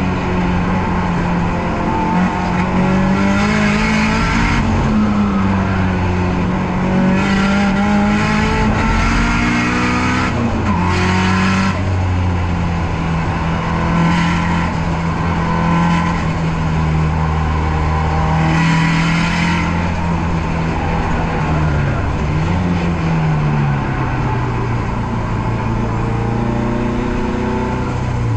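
Nissan S13's turbocharged SR20DET four-cylinder under hard use on a race lap, its pitch climbing through the gears and dropping back again and again. Several short bursts of hiss sound over the engine.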